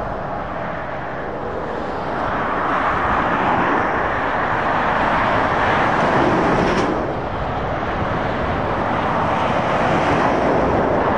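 Motorway traffic: heavy lorries and cars passing, a steady rush of tyres and engines. It swells about two seconds in as a lorry draws near and again near the end.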